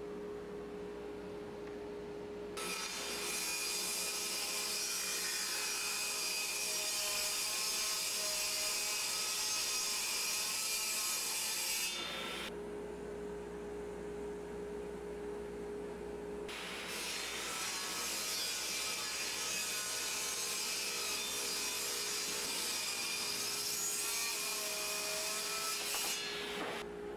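A Bosch 4100XC-10 10-inch table saw runs with a steady whine, then rips through wood twice. Each cut lasts about nine seconds, and the plain blade whine returns between and after the cuts. The blade is binding and burning the wood in these rips, which the owner cannot explain.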